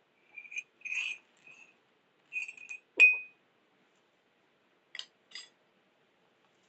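A series of short, high-pitched clinks with a brief ring to them, the loudest and sharpest about three seconds in, followed by two faint clicks about two seconds later.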